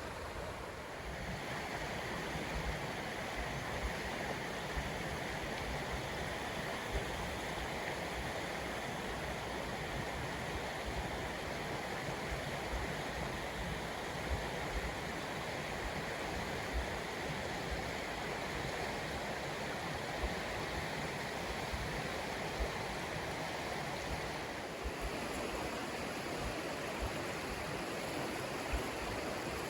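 Gale River running steadily with spring meltwater, a continuous rushing of moving water.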